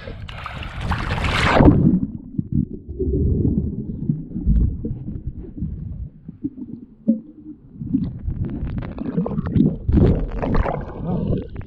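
Water rushing and splashing over a camera mounted low on a Hobie Mirage Tandem Island sailing trimaran as it drives through chop, the camera going under: a loud hiss of spray for the first two seconds, then muffled gurgling with scattered knocks.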